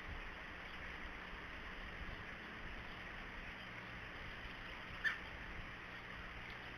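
A single short, sharp call from a red-bellied woodpecker about five seconds in, over a steady background hiss.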